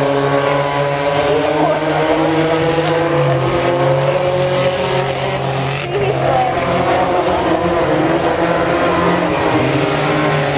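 A field of dirt-track race cars running laps at speed, several engines at once, their pitch rising and falling as they pass and accelerate out of the turns.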